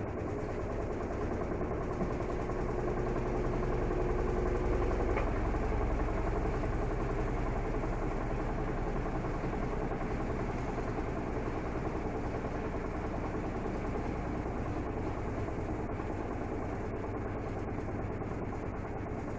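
Electrolux LT12F washing machine with a full load, running its intermediate spin before the first rinse: a steady motor hum and drum rumble. A thin whine runs through the first few seconds and stops about five seconds in.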